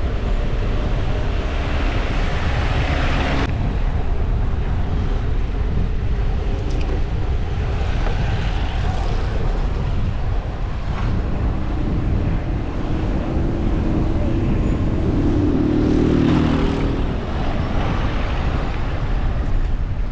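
Wind buffeting the microphone over steady street traffic noise, with a vehicle passing loudest about three-quarters of the way through.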